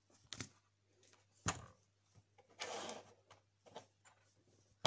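Small clicks and taps of small objects being handled on a workbench, a few spaced seconds apart with a sharp click near the end, plus a short rustle about halfway through, over a faint steady low hum.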